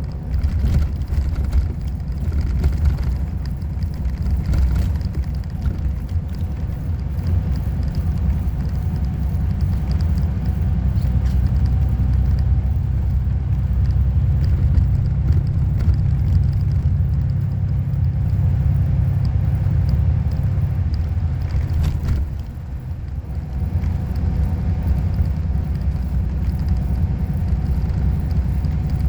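Steady low rumble of a vehicle running, dipping briefly about three quarters of the way through.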